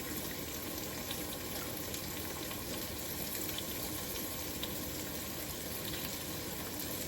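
Canola oil sizzling steadily in a pan of frying fish, with a few faint crackles.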